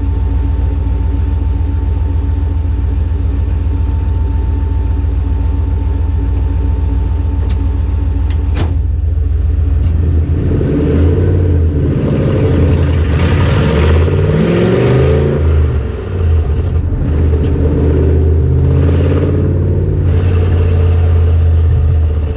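A car engine running at a steady idle, then from about ten seconds in revving and accelerating, its pitch climbing and falling several times.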